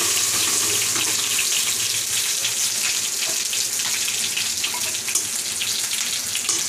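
Steady hissing sizzle of onions frying in hot oil as wet ground masala paste is poured onto them, with small scrapes and taps of a spatula clearing the paste out of a steel mixer-grinder jar.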